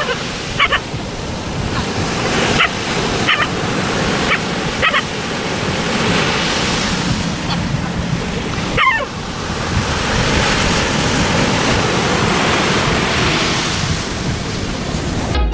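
Surf breaking on a beach: a loud, steady rush of waves. A dog gives several short, high yelps over it, mostly in the first five seconds and once more about nine seconds in.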